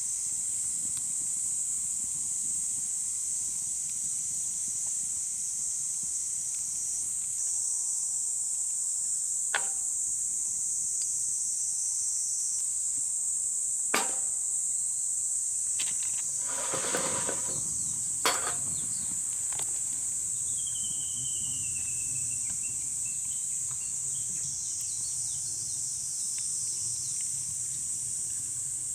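Steady high-pitched chorus of insects, with a few sharp clicks and a brief rustle in the middle, and a short falling bird call about two-thirds of the way through.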